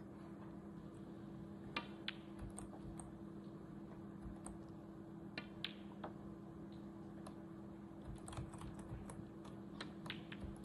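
Irregular clicking of typing on a computer keyboard, in small bursts, over a steady low electrical hum.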